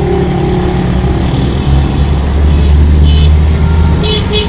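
A road vehicle's engine running close by: a low rumble that swells to its loudest about two to four seconds in. A few brief high hisses come near the end.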